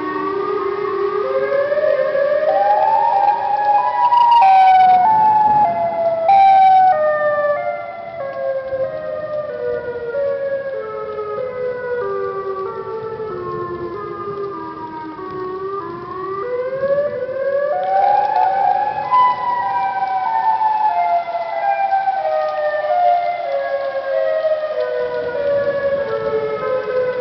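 Tornado warning siren wailing: its pitch climbs in small steps to a high peak over about four seconds, falls slowly for about twelve seconds, then climbs to a second peak and falls again. Two short bursts of hiss come about four and six seconds in.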